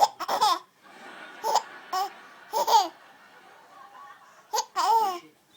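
Young child laughing in short, high-pitched bursts, giggling at her own hiccups.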